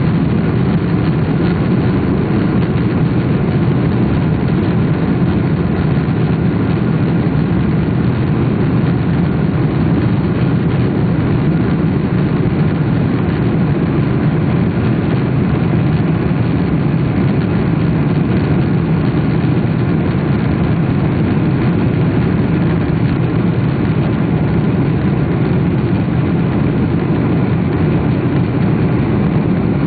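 Steady cabin drone of a jet airliner in flight, heard from inside the cabin: a constant low rumble of engine and airflow noise.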